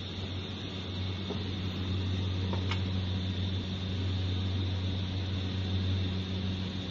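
Steady low electrical hum over a soft hiss, with a couple of faint clicks about one and three seconds in.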